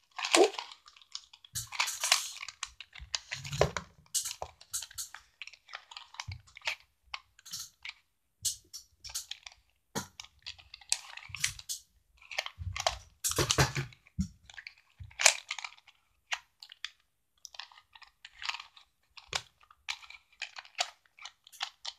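Plastic Rubik's cube being twisted by hand: irregular clicking and clacking as its layers turn, in quick runs with short pauses.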